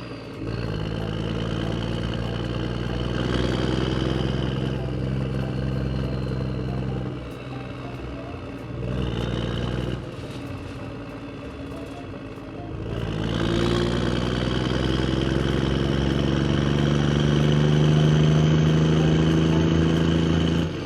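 Vehicle engine running steadily, quieter for a stretch in the middle and louder again from about two-thirds of the way in.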